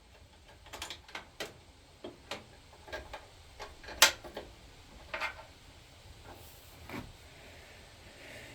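Tools and small metal parts being handled: a string of light, irregular clicks and clinks, the sharpest about four seconds in.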